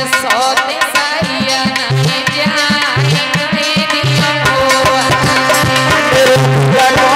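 Indian devotional folk dance music: a hand drum keeps a fast, steady rhythm under a sustained melody line.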